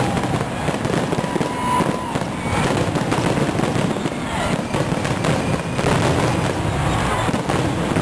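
Fireworks display: aerial shells bursting one after another in a dense, steady run of bangs and crackling, with a few short whistles among them.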